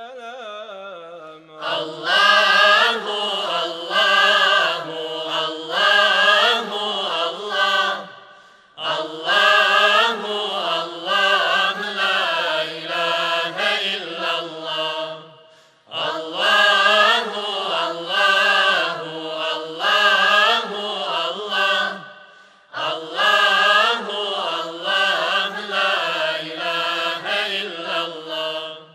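Male vocal group singing unaccompanied in long, wavering, ornamented phrases, four phrases with short breaths between them.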